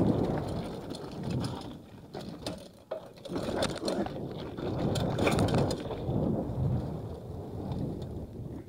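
Mountain bike coasting down a trail: the rear hub's freewheel ratcheting, with clicks and rattles over bumps and the rumble of tyres and wind.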